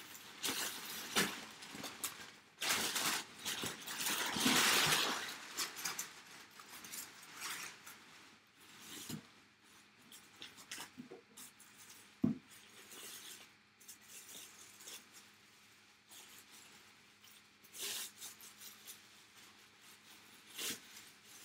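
Packaging rustling and crinkling as a helmet is handled and unpacked, with scattered taps and a sharp click about twelve seconds in.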